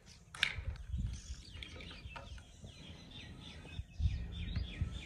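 Small birds chirping in a long series of short, falling notes, with a sharp click about half a second in and low knocking of jars and pots being handled.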